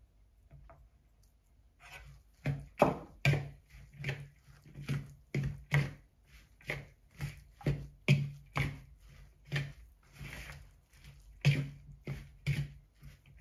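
A metal fork stirring shredded zucchini and flour into a batter in a plastic mixing bowl, knocking and scraping against the bowl in quick strokes about two a second, starting about two seconds in.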